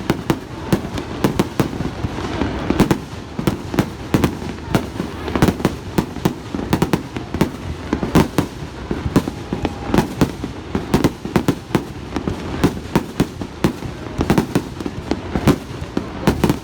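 Fireworks display bursting in rapid succession: a dense, continuous run of bangs, several a second, overlapping with no pause.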